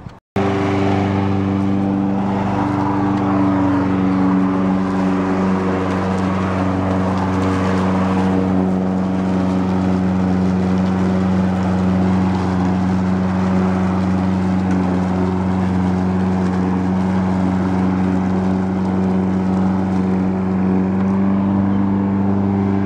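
Walk-behind lawn mower engine running steadily at a constant speed.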